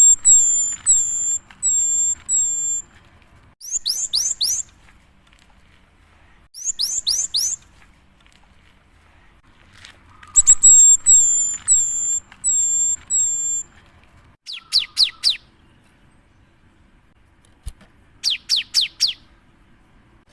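Cinereous tit (gelatik batu) singing loudly in phrases of high, rapidly repeated whistled notes. Some phrases are a run of about five slurred notes, others four quick downward-sweeping notes, with short pauses between phrases.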